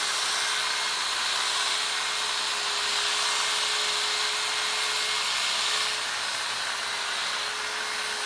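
Electric hedge trimmer running steadily, its reciprocating blades clipping the top of a dense hedge. The motor hums at one fixed pitch over the hiss of the blades, and it gets a little quieter from about six seconds in.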